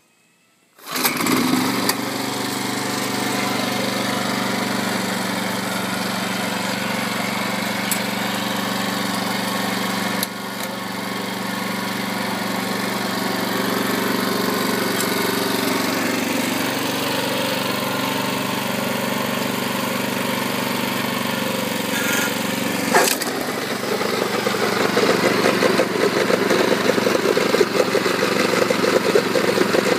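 Engine of a Kubota GC702RD self-propelled mower pull-started, catching about a second in and then running steadily. About two thirds of the way through there is a click, after which it runs louder and rougher.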